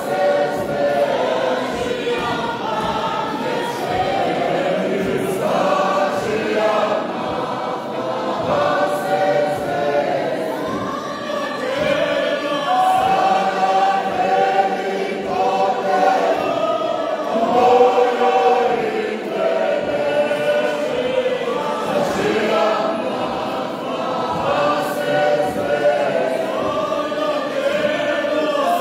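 A church choir of men and women singing a hymn together in harmony, with long held notes.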